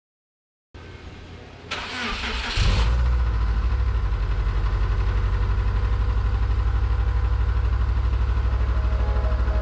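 Subaru Legacy's flat-four engine being cranked by the starter and catching about two seconds in, then idling steadily with a rapid even pulse. This is the engine that has started knocking badly.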